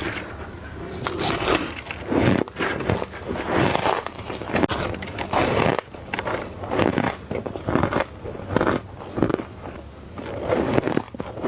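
Soft-crunch ice being bitten and crunched between the teeth: a steady run of short crunches, about two a second.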